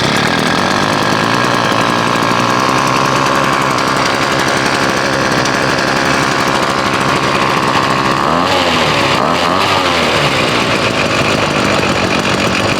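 Two-stroke 42.7cc engine of a MAXTRA pole chainsaw running steadily, its speed wavering briefly about eight to ten seconds in.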